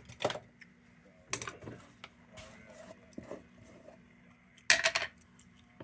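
Metal lantern parts being handled: a handful of separate clinks and knocks, the loudest a short rattle about five seconds in.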